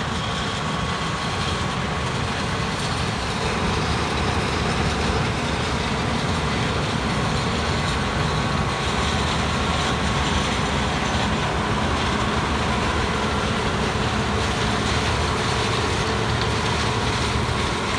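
Thirty-year-old combine harvester running steadily while harvesting soybeans, a loud, unbroken machine drone from its engine and threshing works.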